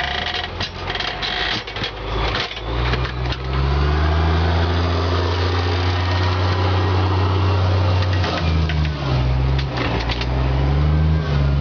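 Vehicle engine running with a steady low note. Knocks and rattles come in the first few seconds, and the engine note dips and rises again about eight seconds in.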